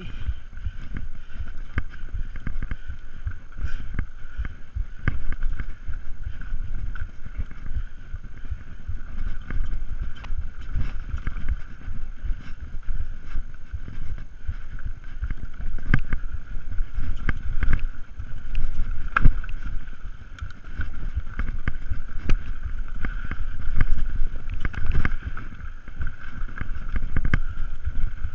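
Mountain bike descending a dirt trail, heard from a bike-mounted camera: a continuous low rumble of tyres over dirt and roots with wind on the microphone, frequent knocks and rattles from the bike hitting bumps, and a steady high buzz throughout.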